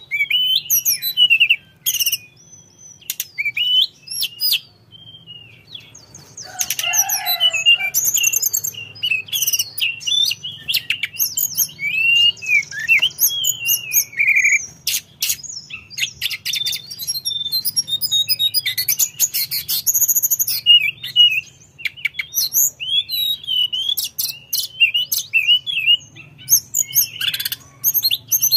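Caged tledekan gunung, a Cyornis blue flycatcher, singing vigorously and almost without pause. It runs a varied string of high whistled phrases, rising and falling glides and rapid trills, broken by short gaps.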